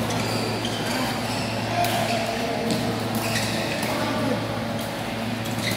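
Badminton rally: several sharp racket hits on the shuttlecock and brief squeaks of shoes on the court floor, over a steady low hum and faint background chatter.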